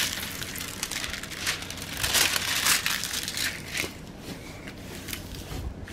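Clear plastic film on a diamond painting canvas crinkling and rustling as it is handled, loudest around two to three seconds in, then fainter.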